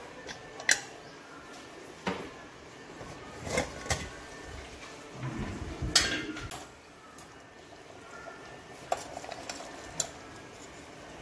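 Metal clanks and knocks of a pressure cooker's lid being handled and taken off, the loudest about a second in and around six seconds in, then lighter knocks of a ladle stirring in the metal pot near the end.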